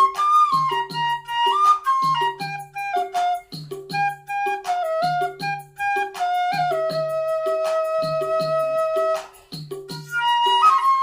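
Instrumental music: a flute melody over a steady drum beat, with one long held note near the middle.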